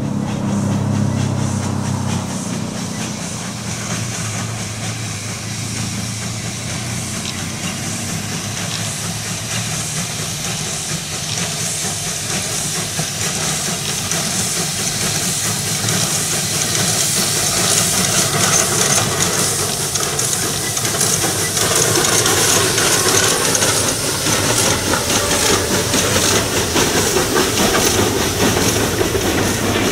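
Metre-gauge 020+020 Mallet steam locomotive working a train past, with a steady steam hiss that grows louder towards the middle. From about two-thirds through, its coaches roll by with wheel clatter on the rail joints.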